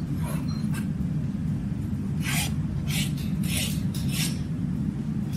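Farrier's rasp scraping across a horse's hoof wall in short strokes, several in quick succession in the second half, as the wall's outer contour is dressed to an even thickness. A steady low rumble runs underneath.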